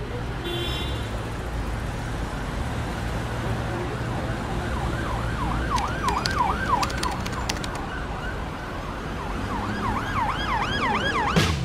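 Emergency-vehicle siren yelping over steady city traffic rumble. The siren sweeps up and down quickly, about three times a second, in two spells: from about five seconds in, and again near the end.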